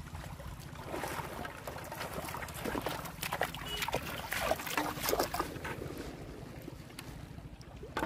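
Footsteps splashing through shallow river water, as a string of irregular splashes that is busiest in the middle and thins out toward the end, over a steady low rumble.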